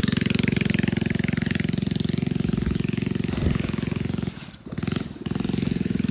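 Mini bike's small single-cylinder engine running hard, a rapid, even firing beat, easing off briefly twice about four and a half and five seconds in before picking back up.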